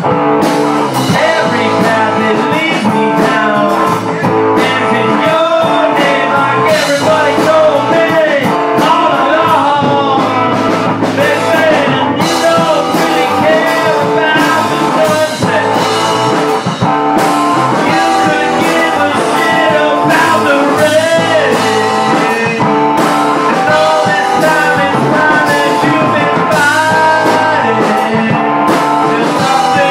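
A live rock band playing with a blues feel: gliding, bending electric guitar lines over bass and a drum kit with cymbals.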